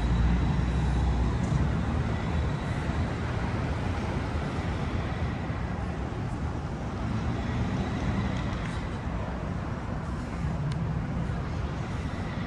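City street traffic: a steady hum of passing cars, with a heavier low rumble in the first couple of seconds and again near the end. A faint steady high whine runs underneath.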